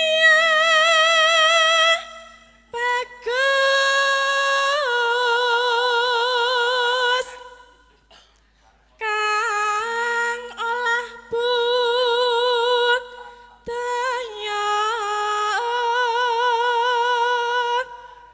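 A Javanese sinden (female vocalist) singing solo in four long phrases of high, held notes with wide vibrato, with short pauses between the phrases.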